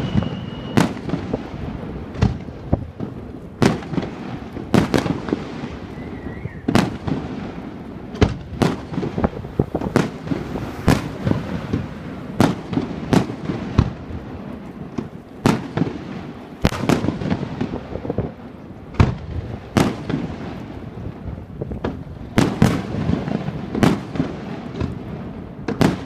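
Aerial fireworks display: shells bursting one after another in an irregular run of sharp bangs, about one or two a second, with crackling in between.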